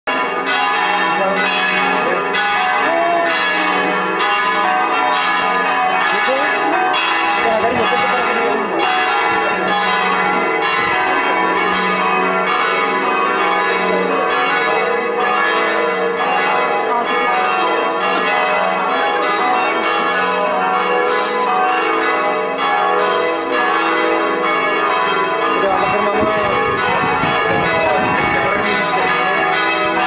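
Church bells ringing in a long, continuous peal: evenly repeated strikes, about two or three a second, each leaving a ringing tone that overlaps the next.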